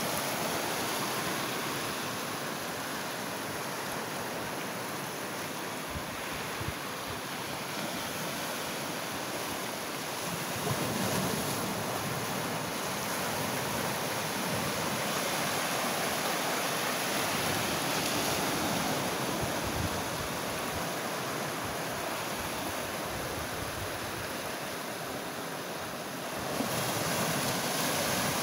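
Ocean surf breaking and washing in among rocks: a steady rush of water that swells louder about a third of the way in and again near the end.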